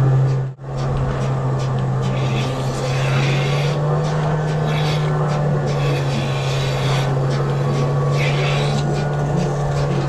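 Steady low hum of a dairy barn's milking vacuum system running, with intermittent hissing from the milker units; the sound briefly cuts out about half a second in.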